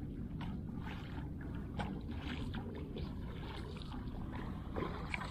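Steady low rumble of water and air around a small fishing boat, with faint, irregular lapping of water against the hull.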